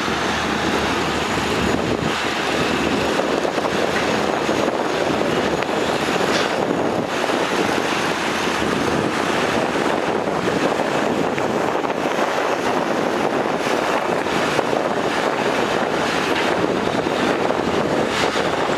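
Heavy diesel earth-moving machinery running steadily under load.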